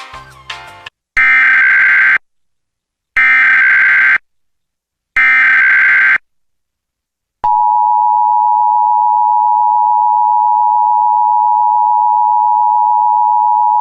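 Emergency Alert System SAME header: three one-second bursts of screeching digital data tones, a second apart. About halfway through, the EAS attention signal follows: a steady, loud two-tone beep (853 and 960 Hz) that holds without a break.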